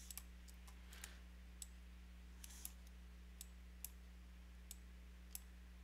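Near silence with about nine faint, irregular clicks of a computer mouse, spaced roughly half a second to a second apart, over a low steady hum.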